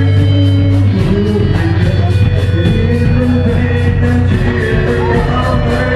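Live rock band playing loudly: electric guitar over bass and a steady drum beat.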